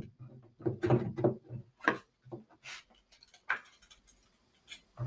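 A string of irregular knocks and clacks from the plastic shelf and legs of a Tubstr two-shelf utility cart being handled and bumped together during assembly.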